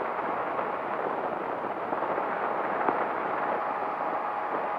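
Powered parachute engine and pusher propeller running steadily in level cruise, mixed with wind rushing over the microphone.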